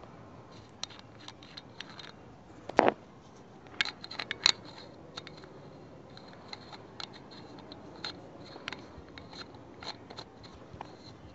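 Handling noise from fingers on the camera: scattered clicks and taps, with one dull thump about three seconds in and a quick run of clicks a second later.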